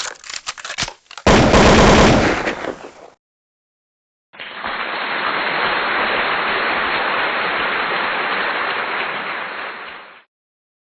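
A quick run of sharp cracks, then a loud burst lasting nearly two seconds. After about a second of silence comes a steady hiss that lasts about six seconds and fades out.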